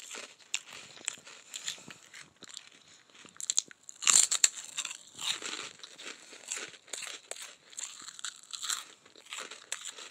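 Crunching and chewing of a crunchy, sweet-iced Korean rice-cake snack, with many short crunches and the loudest cluster about four seconds in.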